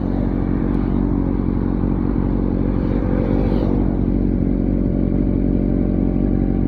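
Kawasaki Z900's 948cc inline-four running steadily through an SC Project aftermarket exhaust, loud and even with no marked rise or fall in revs.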